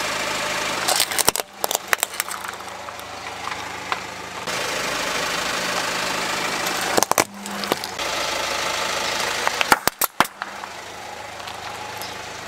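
Plastic toys cracking and crunching under a slowly rolling car tyre, in three short bursts of sharp snaps: about a second in, around seven seconds and around ten seconds. A car engine idles steadily underneath.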